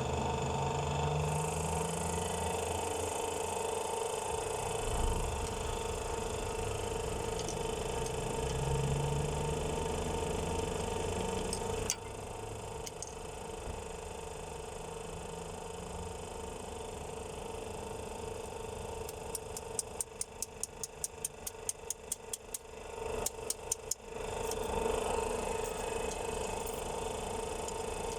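Steady engine-like hum of a machine running, with a quick run of rapid clicks about two-thirds of the way through.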